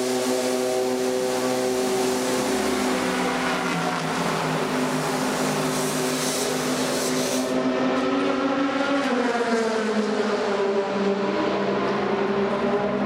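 Racing car engines running on the circuit, their pitch sliding slowly down and up as cars go by, over a steady hiss.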